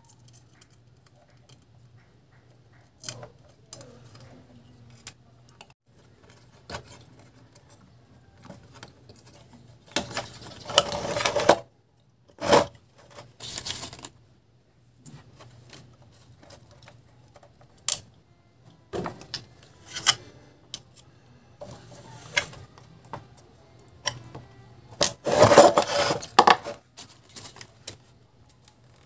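Hands handling wires and transformers on a metal chassis plate: scattered clicks, knocks, clinks and rustling, with louder spells of handling about ten seconds in and again around twenty-five seconds in. A faint steady low hum runs underneath.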